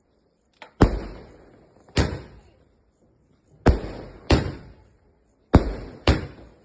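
A 30-shot firework cake firing: six sharp bangs, each trailing off quickly, in pairs about half a second apart, with the pairs about two seconds apart.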